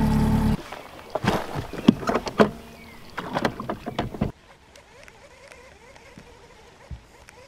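Small outboard motor running, cut off about half a second in. Then a few seconds of sharp knocks and clatter from gear being handled on a small aluminium fishing boat's bow deck, by the trolling motor, before it goes quiet.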